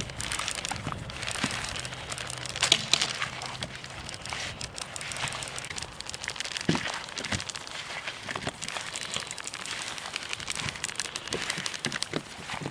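Hands tossing and patting small shemaya fish in corn flour on a tray: an irregular rustling, crinkly patter of small clicks and taps, with one louder clatter about three seconds in.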